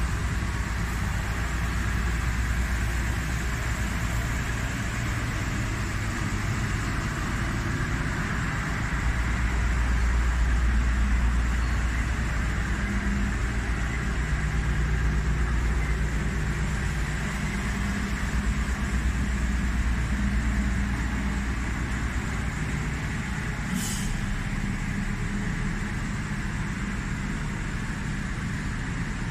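Truck engines running with a steady low rumble under the even hiss of a truck-mounted sprayer throwing mist over a wet street. A single sharp click comes about 24 seconds in.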